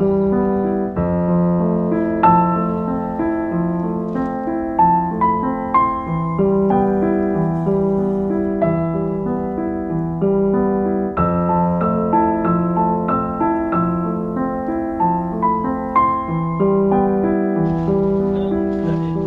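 Background music: a piano or electric keyboard playing a steady, flowing line of notes.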